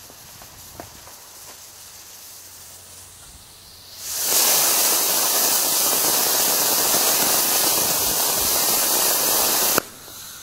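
Homemade potassium nitrate and sugar rocket motor in a static test, clamped in a vise. It lights about four seconds in and burns with a loud, steady hiss for about six seconds, then cuts off abruptly at burnout.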